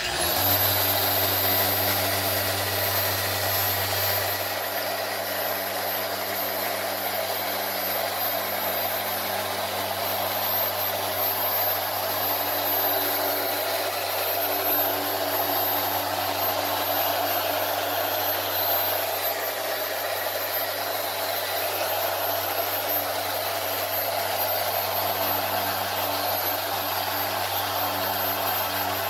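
G8 mini random orbital polisher with a 3-inch sponge pad switching on and then running steadily at speed setting 4 or 5, buffing wet-sanded paint on a truck body. It gives a steady motor hum with a thin high whine.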